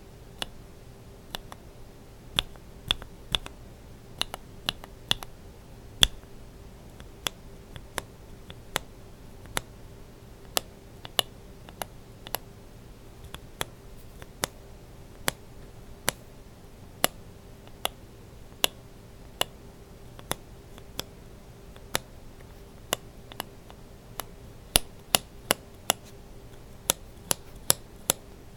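Linear mechanical keyboard switches (Kailh Burgundy stems in BSUN Brown housings) pressed and released one at a time, each keystroke a sharp clack, about one or two a second and coming quicker near the end. A faint steady hum lies underneath.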